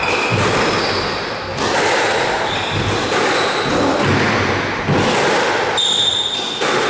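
Squash rally: racket strikes and the ball hitting the walls, a sharp knock every second or so, with short high squeaks of shoes on the wooden court floor, the loudest about six seconds in.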